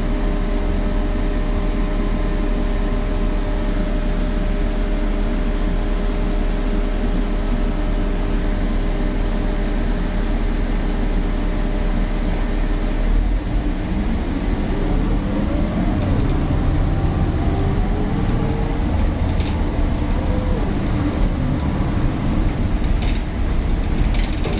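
Inside an old bus while driving: a steady engine hum and road rumble. About halfway through the engine note changes and its pitch rises and falls as the bus changes speed, with a few sharp rattles of the old bodywork near the end.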